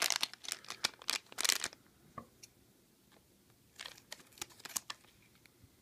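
A crinkly plastic LEGO minifigure blind bag being handled, with a quick run of crinkling and rustling in the first second and a half. About four seconds in come a few sharp snips as scissors cut the bag open.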